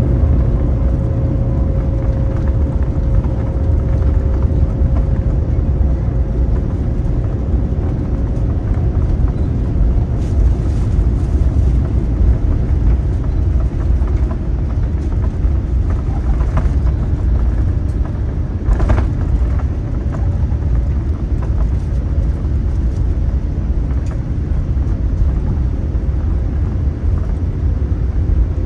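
Steady low rumble inside a Boeing 787-9's cabin as it taxis with its engines at idle. A faint steady tone fades away about a third of the way in, and there is a single click about two-thirds through.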